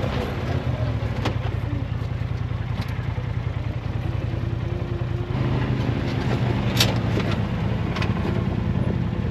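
Side-by-side UTV engine running at low speed while crawling over rough rock, its note shifting about five seconds in, with several sharp knocks and clicks.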